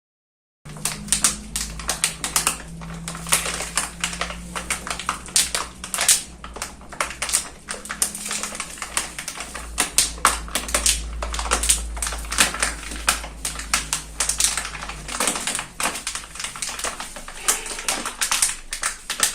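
Campfire crackling: a dense, irregular run of sharp pops and snaps over a low rumble, starting about half a second in.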